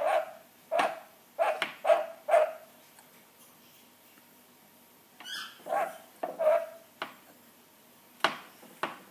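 Rainbow lorikeet mimicking a dog's bark: a run of five short barks, a pause of a couple of seconds, then two more, followed by a few sharp clicks near the end.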